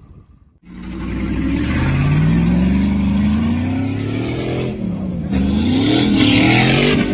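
Pickup truck engine revving hard as the truck spins its tyres in loose dirt, the pitch climbing for several seconds. It drops briefly about five seconds in, then climbs and wavers again under a loud hiss of spraying dirt.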